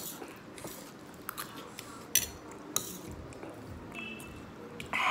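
Metal spoons clinking and scraping on steel plates while noodles are eaten, with a few sharp isolated clinks. A brief vocal sound comes near the end.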